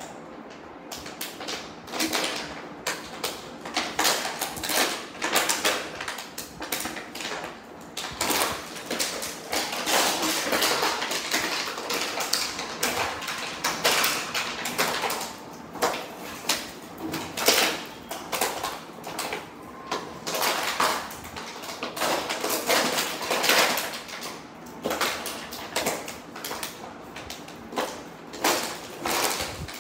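A beagle chewing and shoving an empty plastic bottle across a tile floor: irregular crackling and crinkling of the plastic, with clatters as the bottle knocks on the tiles.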